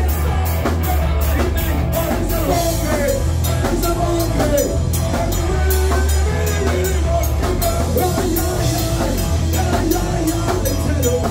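Live rock band playing loud and close: electric guitars over a drum kit keeping a steady, even beat.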